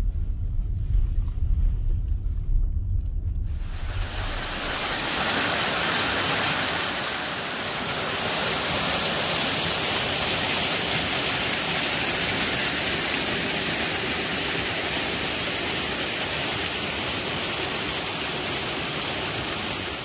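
Mountain stream cascading over rocks between ice, a steady loud rushing of water that starts suddenly a few seconds in. Before it, a low rumble of a car driving.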